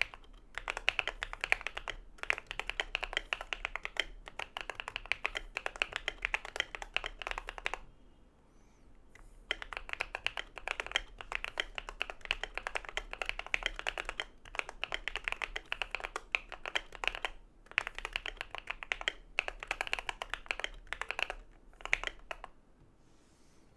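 Fast typing on an Idobao ID80 V1 mechanical keyboard built with factory-lubed Feker Matcha switches, Akko ASA keycaps, a tape mod and PE foam: dense runs of keystrokes with brief breaks, a pause of about a second and a half about a third of the way through, and another pause near the end.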